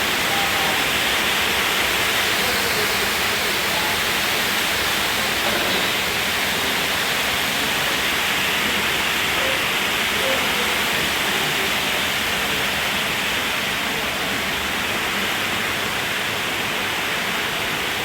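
Heavy rain falling steadily, a constant hiss with no pauses.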